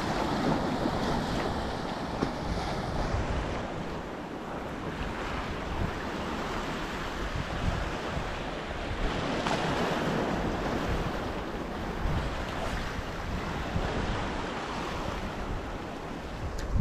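Small sea waves washing and breaking against a rocky volcanic shoreline, with wind buffeting the microphone. A stronger surge of wash comes about nine seconds in.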